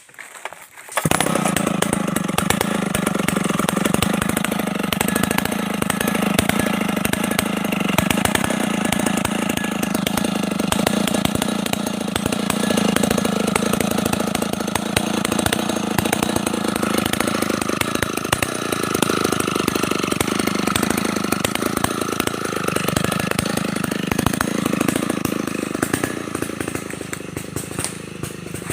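Stihl 070 two-stroke chainsaw running steadily. It comes in suddenly about a second in.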